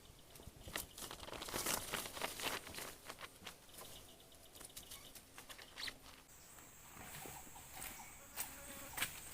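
Irregular crackling and rustling, dense for the first few seconds, then a steady high-pitched insect drone from about two-thirds of the way through, with a few sharp clicks over it.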